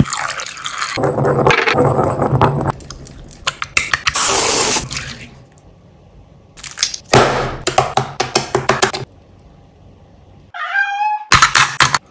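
Wet, sticky crackling and squelching of clear slime, first as liquid is poured and worked with a pestle in a black mortar, then as the slime is stretched and pulled by hand, in bursts with short quiet gaps. A brief tone sliding in pitch sounds near the end.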